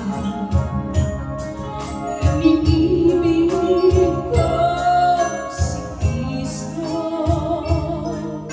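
Live band music: a woman sings a melody into a microphone over keyboard, electric guitars and drums with a steady beat.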